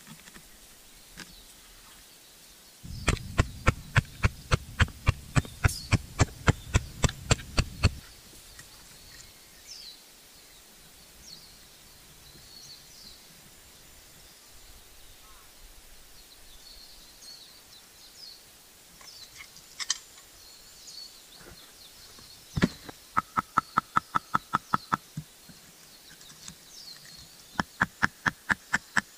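Hammer blows on wood in quick, even runs of about four a second. A first run lasts about five seconds with a dull thud under each blow, and two shorter runs near the end ring with a metallic tone. Birds chirp faintly in the background.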